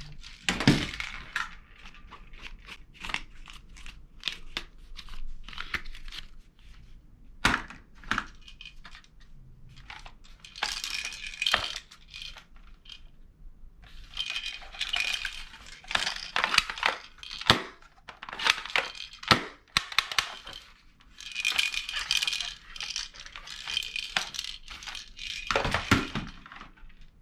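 Handling noise from plastic toys and packaging: scattered sharp clicks and knocks with repeated crinkling, rustling bursts.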